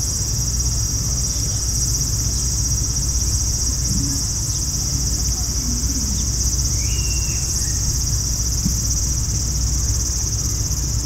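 Cicadas in the trees keep up a steady, high-pitched sizzling drone, with a steady low rumble underneath.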